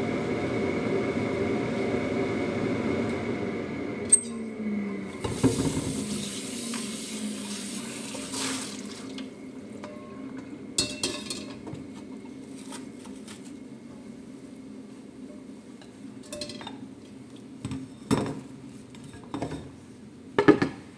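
Kitchen sounds at a wok on a gas stove: a steady humming drone stops with a click about four seconds in, then a few seconds of rushing water, then scattered clinks and clatters of a metal wok and utensils, the loudest near the end.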